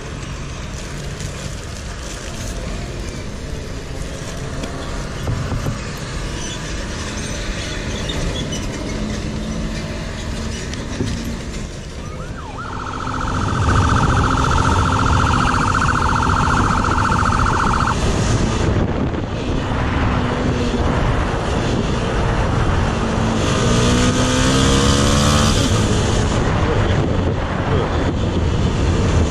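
Traffic noise, then from about 13 s the sound of riding a police motorcycle on a highway: engine and wind noise, with a steady high tone for about five seconds and the engine revving up briefly near the end.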